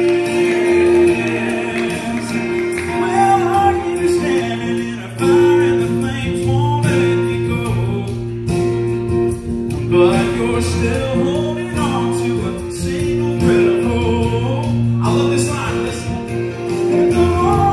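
Live gospel music: a singer on a microphone over two strummed acoustic guitars, with a steady bass underneath.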